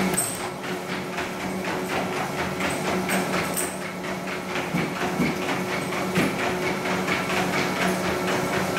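Motorized treadmill running with a steady hum while a Labrador's paws tap on the moving belt in an even walking rhythm.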